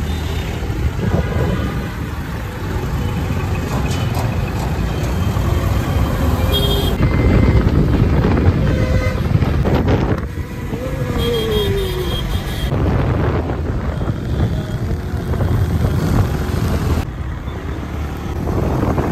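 Road traffic heard while riding through city streets: a steady rumble of engines and wind on the microphone, with short vehicle horn toots about six and twelve seconds in and a passing vehicle's falling pitch around eleven seconds.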